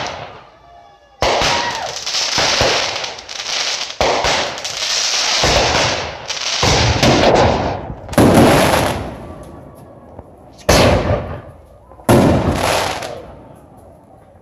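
Fireworks going off: about five sudden bangs, each followed by crackling and fizzing. The first half holds a long unbroken run of crackle, and the later bursts are shorter.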